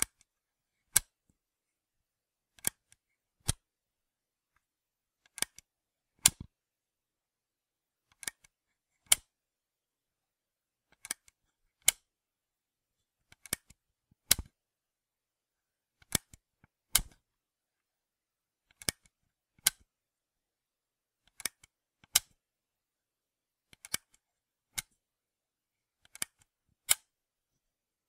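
A camera switch being flipped: sharp, dry clicks, mostly in pairs less than a second apart, a pair every two to three seconds, about ten pairs in all.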